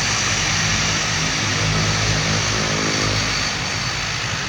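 Turboprop airliner's engines running on the ground: a steady, noisy propeller drone over a dense hiss.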